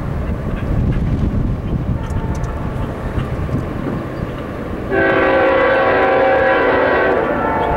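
Diesel freight locomotive's air horn sounding one long blast of a little over two seconds, starting about five seconds in, over a low rumble.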